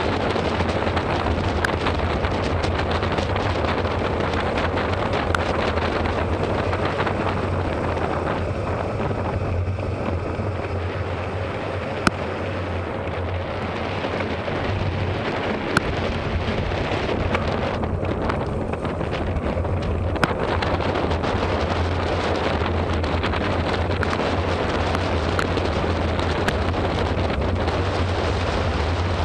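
Wind rushing over the microphone of a bicycle-mounted camera on a fast wet descent, over the hiss of tyres on the rain-soaked road. A few sharp clicks stand out, about twelve, sixteen and twenty seconds in.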